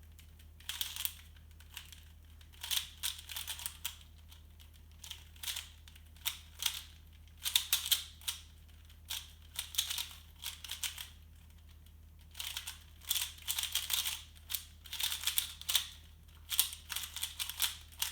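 A Rubik's Cube being turned fast in a speedsolve: rapid runs of plastic clicking and clacking as the layers snap round, broken by short pauses. There is a steady low hum under it.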